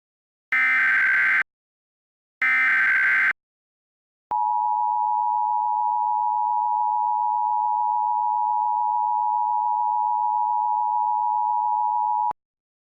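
Emergency Alert System tones: two short bursts of SAME header data, each about a second of rapid digital warble, then about eight seconds of the steady two-tone EAS attention signal, which cuts off abruptly. These mark the start of a new alert message.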